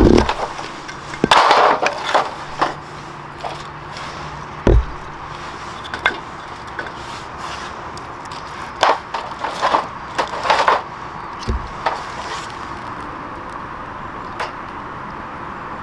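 Split firewood sticks being laid one by one onto a thin steel-sheet fire pit, making scattered wooden knocks and clacks in a few clusters through the first twelve seconds, with a steady low background throughout.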